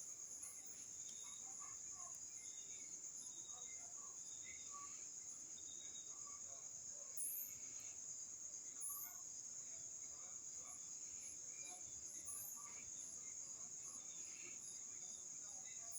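Crickets trilling steadily in a high, even chorus, with a few short rising high-pitched chirps breaking in about every second or two from the middle on.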